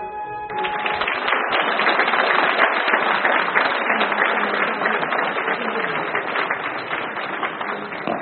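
Audience applauding, breaking out about half a second in as the song's last held note ends, then fading near the end.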